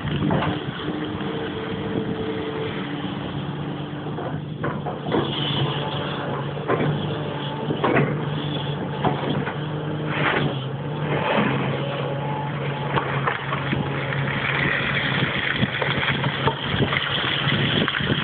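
Komatsu PC340LC excavator's diesel engine running steadily under working load, its pitch shifting slightly up and down, with sharp knocks and clatter every second or two.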